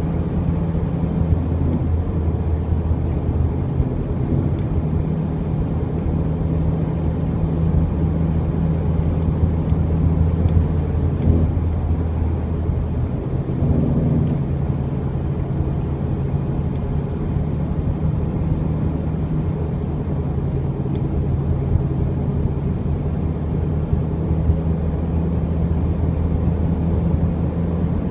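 2002 Jeep Grand Cherokee Quadra-Drive driving at road speed: a steady low drone with several steady tones that shift a little around the middle. It carries the grinding that comes on when letting off the gas at about 80 km/h, which the owner thinks is the transfer case but is unsure.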